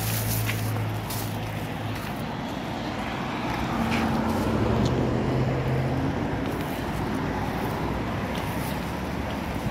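Street traffic: steady road noise with the low hum of car engines, a nearer engine hum rising and fading twice.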